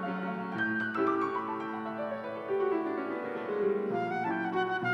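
Concert flute playing a slow, sweet melody of held notes over an accompaniment.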